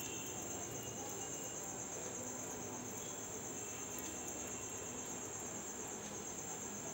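A cricket trilling steadily, one unbroken high-pitched pulsing chirr that runs on without a break.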